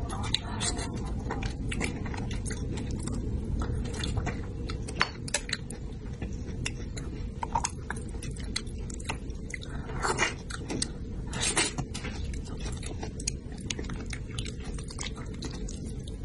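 Close-miked chewing and wet mouth clicks of someone eating soft spicy braised fish, a steady run of small smacks and clicks with a few louder clusters near the middle.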